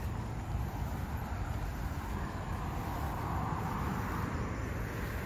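Steady outdoor background noise with a low, fluttering rumble, swelling a little a few seconds in.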